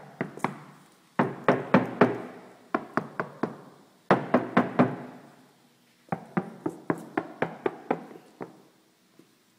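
Knuckle knocks on the door panel of a 2nd-generation Toyota Prius (NHW20) fitted with DIY sound-deadening material, tested to hear how well the treatment damps the panel. The knocks come in quick runs of four to seven, with short pauses between the runs.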